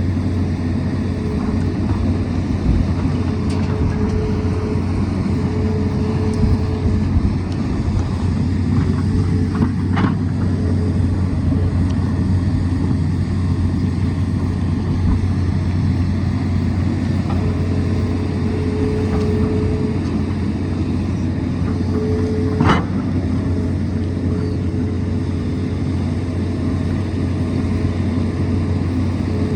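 Tata Hitachi excavator's diesel engine running steadily under load, with a higher whine that comes and goes as it works, and two sharp knocks, about ten seconds in and again about two-thirds through.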